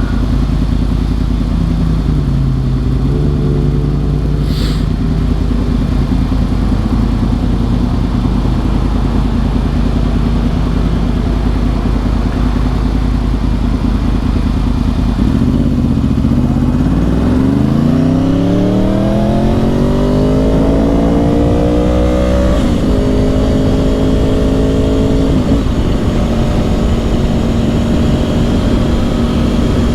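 Yamaha R1 crossplane inline-four with Yoshimura exhausts running under way over steady wind rush. About halfway through, the engine note climbs steeply for several seconds as the bike accelerates, then drops in steps twice near the end as it shifts up.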